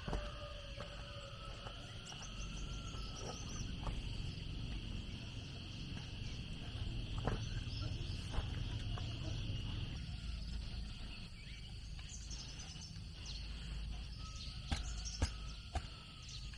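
Steady, high-pitched insect chorus, crickets or similar, that fades about ten seconds in. Faint whistles are heard near the start and the end, and a few sharp knocks over a low rumble.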